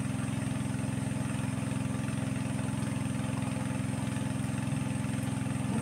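A small engine running steadily at idle, a constant low, rapidly pulsing hum.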